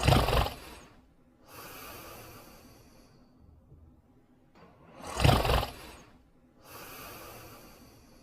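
Cartoon dog snoring in its sleep: two breaths about five seconds apart, each a short, loud snoring inhale followed by a longer, quieter hissing exhale.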